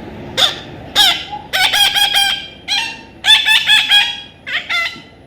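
Pet parrot giving a run of short, harsh screeching calls in quick bursts, several a second.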